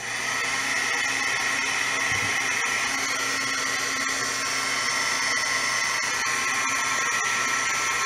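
A handheld heat tool switches on and blows hot air steadily to dry fresh paint-pen ink on a paper cutout, a steady fan whir with a high whine.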